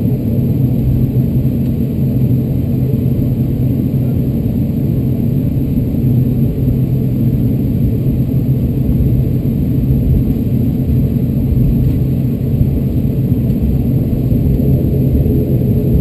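ATR 72-600 turboprop engine and propeller running at low taxi power, heard from inside the cabin: a steady low drone with a constant deep hum.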